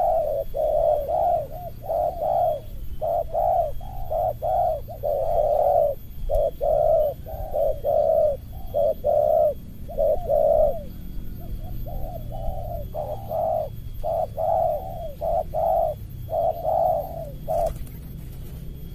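Spotted doves cooing in a dense, rapid run of short, closely spaced notes, two rival birds calling as they face off. The cooing stops near the end with a brief flutter of wings.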